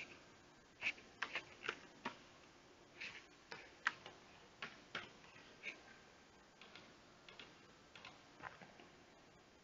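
Faint, irregular clicking of computer keyboard keys being typed, then a few sparser mouse clicks in the second half.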